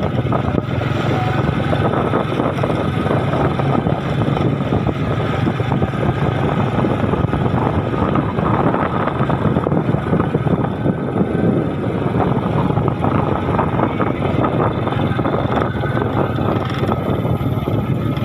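A vehicle engine running steadily under a dense rushing noise, as heard while travelling.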